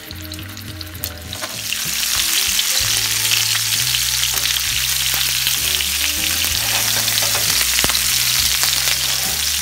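Chicken drumsticks sizzling and crackling as they fry in hot oil in a frying pan, the sizzle swelling to a loud, steady hiss about a second and a half in.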